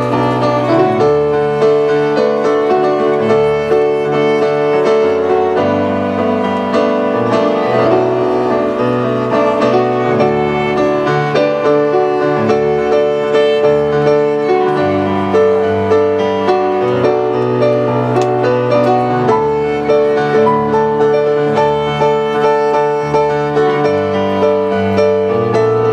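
Violin and electric keyboard duo playing an instrumental piece: the violin holds long sustained melody notes over keyboard chords and bass notes.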